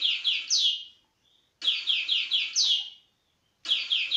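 Recorded European goldfinch singing the 'towtow jiw' phrase: a quick run of four short falling notes ending in a longer downslurred note. The phrase is heard three times, about two seconds apart, played back through computer speakers.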